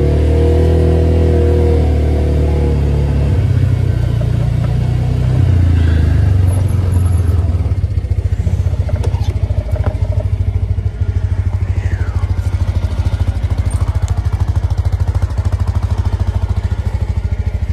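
Utility side-by-side's engine running under way, pitch rising and falling in the first few seconds, then settling about halfway through into a steady, evenly pulsing idle.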